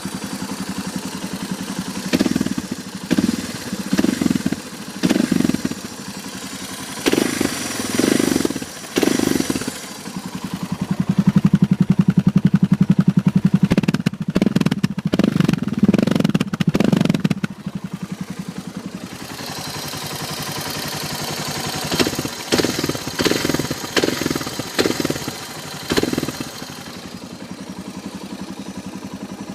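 Suzuki DR650SE's single-cylinder four-stroke engine idling and being blipped again and again, the revs rising and falling back in short bursts with one longer run. Under it is a mechanical clatter that the owner puts down to the cam chain.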